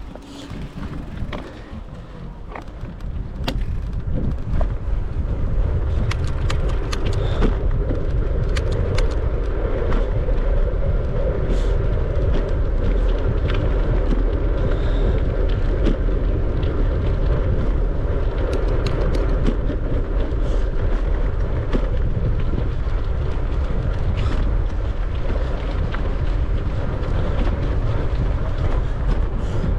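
Wind rumbling on the microphone and tyre noise of a bicycle riding on, growing louder over the first few seconds and then steady, with scattered light clicks.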